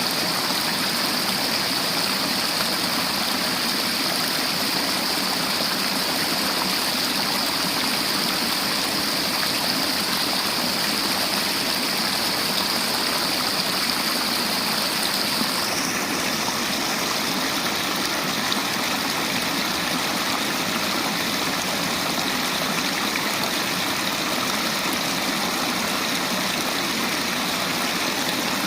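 River water flowing steadily in a continuous rushing noise, its tone changing slightly about halfway through.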